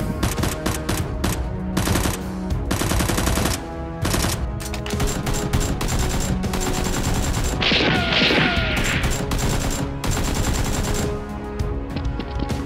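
Bursts of rapid automatic gunfire over steady background music, with a harsh noisy burst about eight seconds in.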